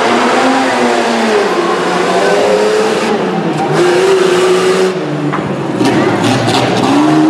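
Jeep Cherokee's engine revving hard as it races a dirt course, its pitch climbing and dropping several times as the driver gets on and off the throttle.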